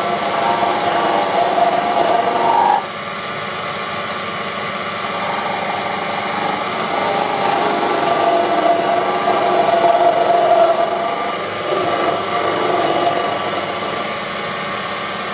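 Proxxon PD 250/E mini lathe running, a steady motor whine with many high tones over a noisy hiss. The sound drops a little about three seconds in.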